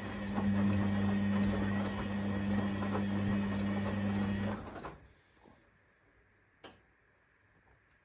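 Arçelik 7103 Y front-loading washing machine tumbling its wash load: a steady motor hum with water and clothes swishing in the drum. The motor stops nearly five seconds in and the drum rests between turns, with one sharp click a little later.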